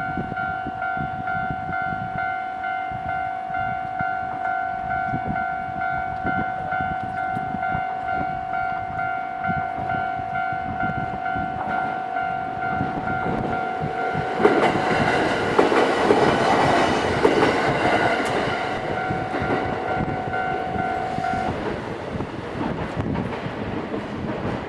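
Japanese railway level-crossing alarm bell ringing in a steady repeating pattern while a JR Kisei Line train passes over the crossing a little after the middle. The bell stops near the end once the train has gone by.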